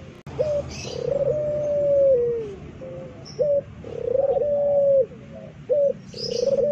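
Puter pelung, a domestic Barbary dove bred for a long, loud coo, cooing repeatedly: long held notes that step down in pitch at the end, with a short clipped note between each, about every two and a half seconds.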